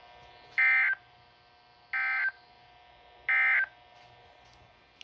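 EAS/SAME end-of-message signal from a NOAA Weather Radio broadcast: three short bursts of warbling digital data tones about 1.3 seconds apart, marking the end of the alert message, over a faint steady hum from the receiver.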